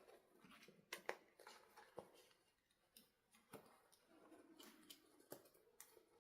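Faint handling sounds: scattered light clicks and soft rustling, as of small plastic toy parts and packaging being handled.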